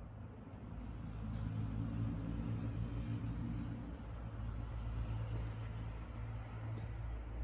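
A power tool's electric motor running steadily with a low hum, growing a little louder about a second in.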